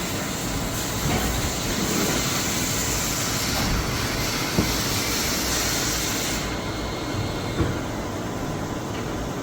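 Tsugami BO325-II CNC Swiss-type lathe running a machining cycle: a steady machine whir with a high hiss that drops off about six seconds in, and a couple of short clicks from the tooling.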